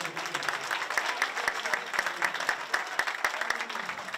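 A crowd applauding with many hands clapping fast and unevenly, with voices mixed in.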